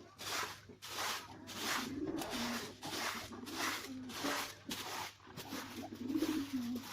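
Stiff palm-frond broom sweeping chicken droppings off a concrete floor, in rhythmic swishing strokes about twice a second. A pigeon coos twice in the background.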